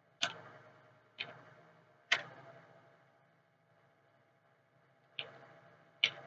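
Single keystrokes on a computer keyboard typed slowly: five sharp clicks, each with a short ringing tail, the first three about a second apart, then a pause of about three seconds before two more.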